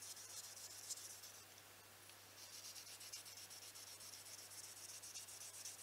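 Mercator knife blade stroked lightly along fine 5000-grit sandpaper on a flat block, a faint dry scratching that eases off briefly about a second and a half in. The edge is being honed back to shaving sharpness.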